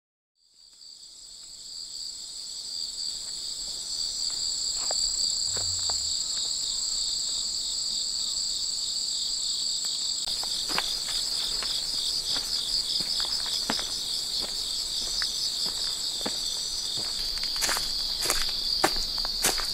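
A steady chorus of insects singing with a high, faintly pulsing drone, fading in over the first couple of seconds. Footsteps come in about halfway through and grow more frequent near the end.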